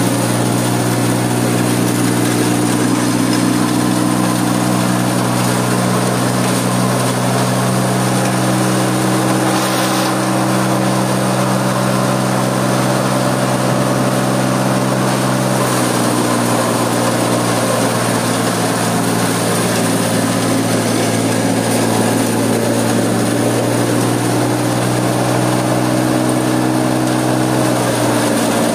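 Small hammer-mill stone crusher driven by a three-phase electric motor, running steadily with a loud, even hum.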